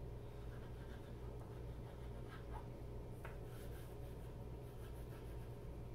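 Stockmar wax stick crayon rubbing and scratching faintly on drawing paper as it colours in, over a steady low hum.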